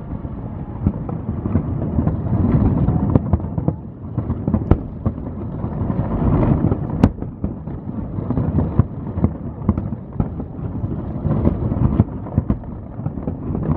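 Fireworks display going off without a break: a dense, rolling run of booms under many sharp cracks and crackles, with one especially sharp crack about seven seconds in.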